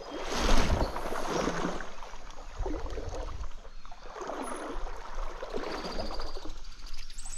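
Stream water sloshing and splashing in uneven surges.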